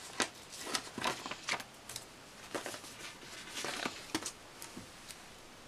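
Paper sticker sheets being handled and moved about, with a run of short crinkles, rustles and taps that dies down after about four seconds.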